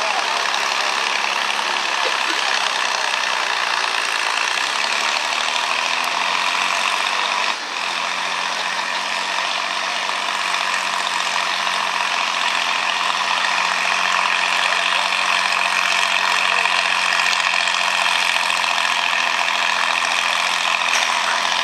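International Farmall 560 tractor's six-cylinder engine running hard at full throttle while pulling the sled. Its note sags a little about seven seconds in, then holds steady.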